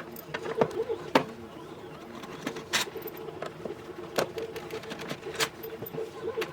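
Irregular clicks and knocks of small parts and tools being handled, over a steady hum.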